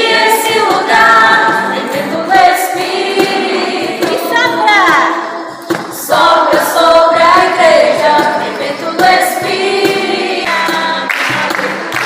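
A group of voices singing a song together over music, the melody gliding up and down in sung phrases.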